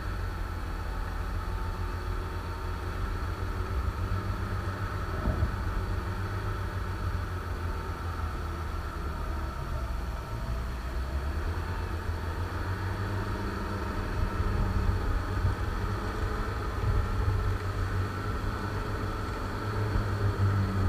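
UAZ-469 off-road vehicle's engine running steadily at low revs while the vehicle is winched slowly up a snowy slope.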